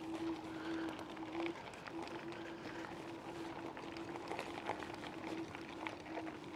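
Electric scooter's motor whining at a steady pitch, cutting out briefly about a second and a half in, while gravel crackles and pops under the tyres.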